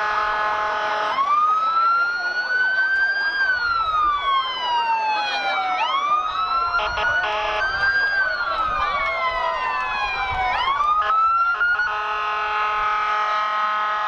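Fire truck sirens wailing, each rising and falling slowly over a few seconds, with two sirens overlapping. A steady held tone plays at the start, gives way to the wail about a second in, and returns about twelve seconds in.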